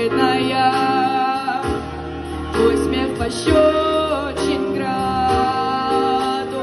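A song: a voice sings held, gliding notes over instrumental accompaniment with a steady bass.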